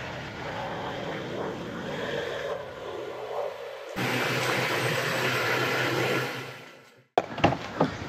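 A steady mechanical noise, louder from about four seconds in with a low hum under it, fading out to a brief silence, followed by a few sharp knocks near the end.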